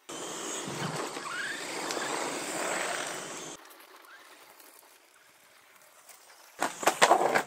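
Small electric RC truck driving fast over gravelly asphalt: tyres crunching on loose grit, with a brief rising motor whine about a second in. The noise cuts off abruptly, and a burst of sharp crackling hits follows near the end.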